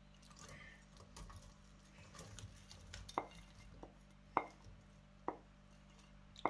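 Faint handling sounds as sliced onions are slid off a plate into a frying pan with a wooden spatula: a soft rustle at first, then about five sharp taps of the spatula against the plate and pan over the last few seconds.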